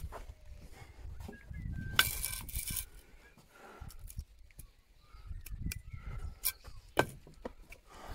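Trowel and hand knocking on a natural stone as it is bedded in mortar and levelled, with mortar scraped by the trowel. A sharp knock comes about two seconds in, followed by a brief scrape, and two more knocks come near the end.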